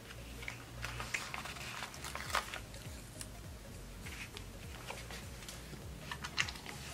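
Paper sticker sheets being handled and a sticker peeled off: light rustles and small clicks in three short clusters.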